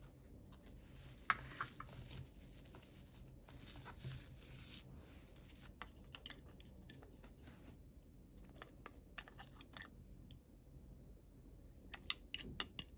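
Faint crinkling and tearing of packaging being opened by hand, with scattered small clicks and taps. A quicker run of clicks comes near the end.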